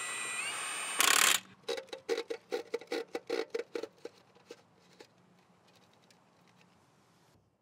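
Cordless impact wrench whirring up and then hammering briefly as it runs a lug nut onto a dually's rear wheel. After that comes a run of light metallic clicks, about four a second, that thin out and stop about five seconds in.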